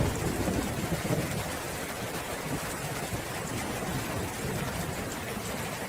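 Steady rain falling, with a low rumble of thunder swelling in the first second or so and then fading back into the rain.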